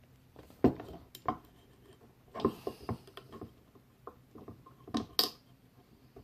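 Small hard clicks and knocks of parts being handled on a T15 paintball marker as the trigger-group pins are fitted back into their holes. The loudest knock comes about two-thirds of a second in, followed by scattered smaller clicks and a pair of sharp ones about five seconds in.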